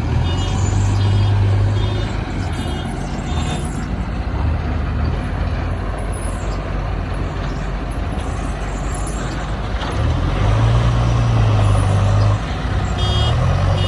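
Heavy diesel engines of a JCB backhoe loader and tipper trucks running, the engine drone swelling under load near the start and again about ten seconds in. A vehicle reversing alarm beeps in the first few seconds and again near the end.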